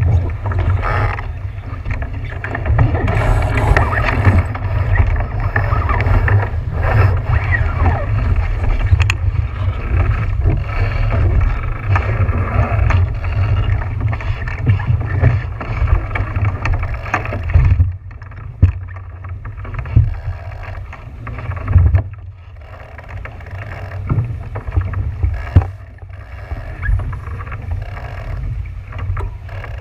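Wind rumbling on the microphone over the running engine of a boat and water noise, with occasional thumps and dips in the second half.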